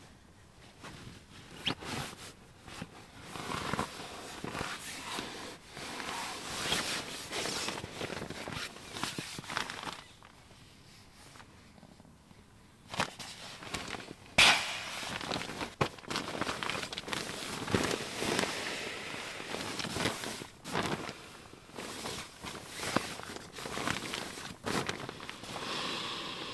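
Nylon sleeping gear rustling and crinkling as it is handled, rolled and pressed down, with scattered clicks. It pauses for a few seconds near the middle, then a single sharp snap.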